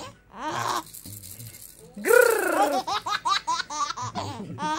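Baby laughing in quick repeated bursts, with a louder burst set off again about two seconds in by an adult's playful growl.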